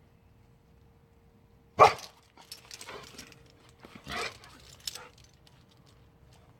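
A dog barking: one loud bark about two seconds in, then several quieter barks over the next few seconds.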